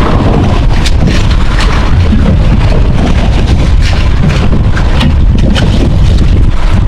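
Wind buffeting the microphone aboard a boat offshore: a loud, steady rumble with scattered sharp ticks.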